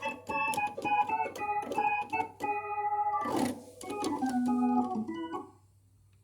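Nord Stage 3 stage keyboard being played: a quick phrase of notes and chords with sharp attacks and one louder hit about three seconds in. The playing stops about five and a half seconds in.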